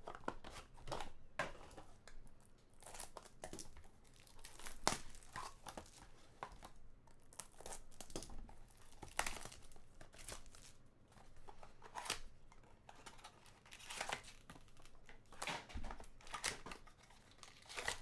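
A trading-card pack wrapper being torn open and crinkled, with irregular crackles as the cards are handled.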